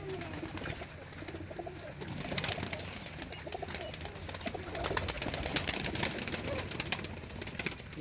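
A flock of domestic pigeons cooing, many low wavering calls overlapping. About two and a half seconds in, and again around five to six seconds in, there are runs of sharp flutters and rustles as one pigeon is caught and handled by hand.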